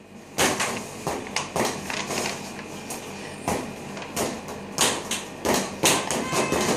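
Boxing gloves striking wall-mounted focus mitts: a run of sharp punches at an uneven pace, some coming in quick pairs.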